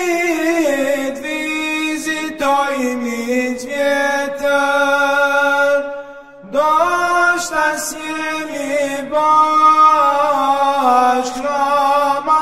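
Wordless male vocals in an Albanian Ramadan devotional song, several voices layered in a chant-like line of long held and gliding notes. The voices break off briefly about six seconds in, then come back.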